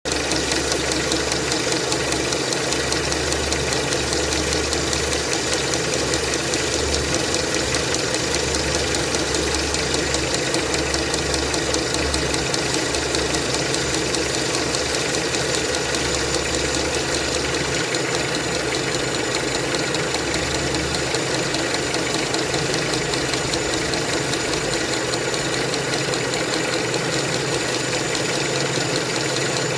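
Renault Mégane II's K4M 1.6-litre 16-valve petrol engine idling steadily with an extraneous noise, while the accessory-belt tensioner and idler pulley shake hard, which the owner is unsure is normal.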